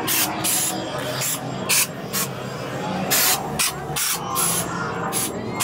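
Short sharp hissing bursts, a few a second at uneven intervals, over a continuous background of voices and soundtrack.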